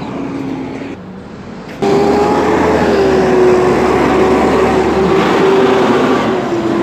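Mack rear-loader garbage truck passing close by, its engine running with a steady whine. The sound starts suddenly about two seconds in.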